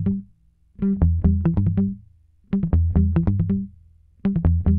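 Background music: a synth riff of quick plucked notes over a bass, played in short phrases of about a second with a brief pause between each.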